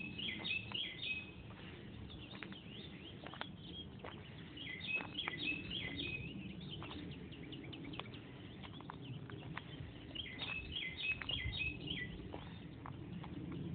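A songbird sings a short phrase of several quick high notes three times, about five seconds apart, over the crackle and crunch of footsteps through dry leaves and twigs on a woodland path.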